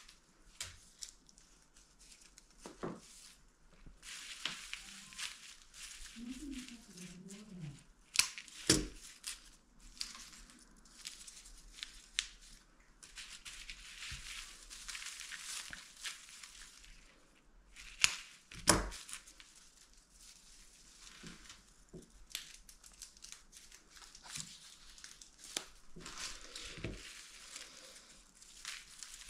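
Crinkly wrapping material being handled: rustling and crinkling in long stretches, with a few sharp knocks.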